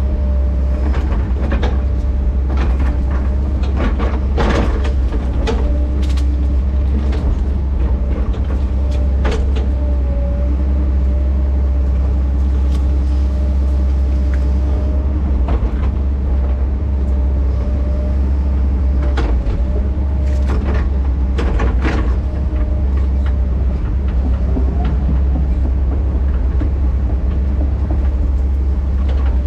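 Heavy earthmover's diesel engine running steadily under load, with repeated metallic clanks and knocks as the machine works through brush and logs, and a faint steady hydraulic whine.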